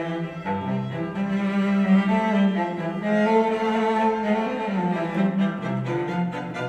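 Classical string music, cello and other bowed strings holding sustained notes, played back through a pair of Kali Audio LP-8 8-inch two-way studio monitors and recorded in the room.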